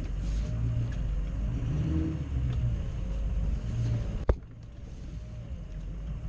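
Full-size pickup truck's engine running and surging as it drives through a water-filled mud hole. About four seconds in there is a sharp knock, after which the sound turns quieter and duller.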